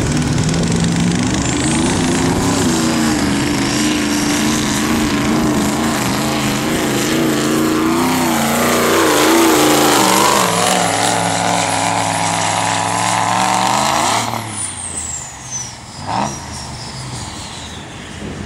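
Diesel pickup truck engine at full throttle pulling a sled, running hard under load with a high turbo whistle over it. The engine note sags and recovers about nine seconds in. Near the end the throttle lifts, the engine drops away, and the turbo whine falls steadily as it spools down.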